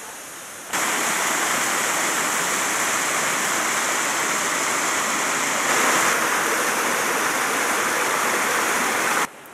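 Mountain stream rushing down small waterfalls and cascades over rock, a steady, loud rush of water. It comes in abruptly about a second in and cuts off abruptly just before the end.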